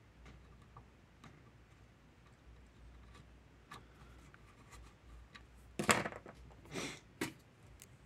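Quiet workbench with scattered faint ticks and clicks of small tools at a soldering job. About six to seven seconds in come a few louder knocks and short rustles as the soldering iron is moved away from the circuit board.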